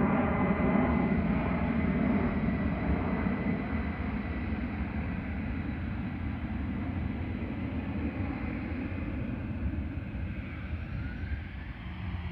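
Jet airliner's engines roaring overhead and fading away as the plane flies off, with a thin, steady high whine held above the rumble.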